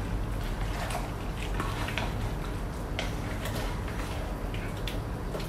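A cooking spoon stirring a thick stew in a metal pot, with scattered light clicks and scrapes of the spoon against the pot over a steady low hum.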